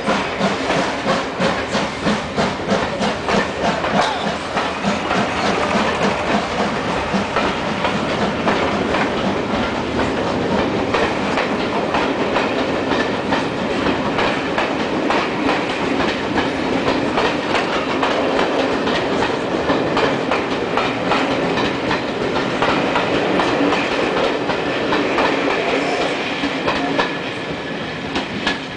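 Passenger coaches of a steam-hauled train rolling past, their wheels clattering in a rapid run of clicks over the rail joints. The sound eases near the end as the last coach goes by.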